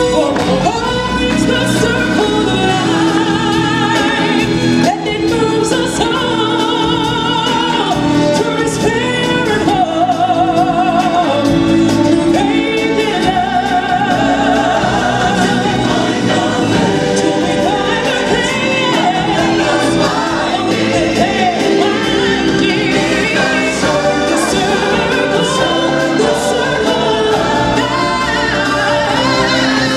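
A woman singing a gospel-style solo into a microphone, with wide vibrato on her held notes, over loud backing music.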